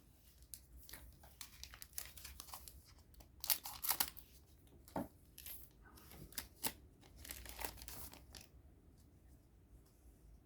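A Digimon Card Game booster pack's wrapper being torn open and crinkled, in short crackly bursts. The loudest tearing comes about three and a half to four seconds in.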